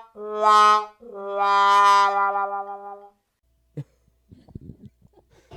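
Music from a metal song: a brass-like horn line of steady held notes, a short one and then a longer one lasting about two seconds, followed by a near-silent pause with a few faint clicks.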